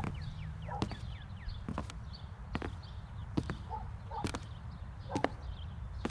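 Slow, evenly spaced knocks, a little under one a second, over a low rumble, with a few short falling bird chirps near the start.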